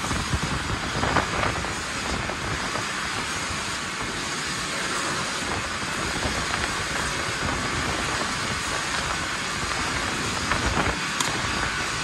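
Steady hiss and rumble of machinery on a tile factory's packing line, with a few short clicks and knocks.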